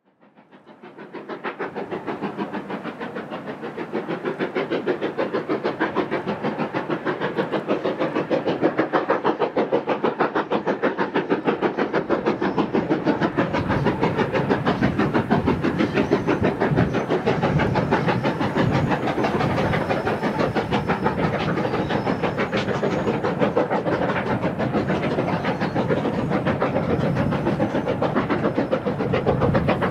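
BR Class B1 4-6-0 steam locomotive's two-cylinder exhaust chuffing in a fast, even rhythm as it hauls a five-coach train. The sound fades in at the start and grows louder over the first several seconds as the train approaches.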